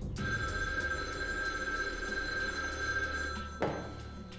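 Desk telephone's bell ringing continuously for about three and a half seconds, then cutting off with a short knock.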